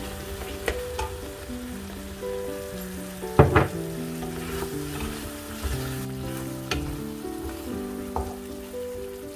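Thick cream-and-tomato sauce with rice cakes simmering and being stirred in a frying pan, with a wooden spatula and a spoon scraping and clicking against the pan and a sharp knock about three and a half seconds in. Soft background music with held notes plays underneath.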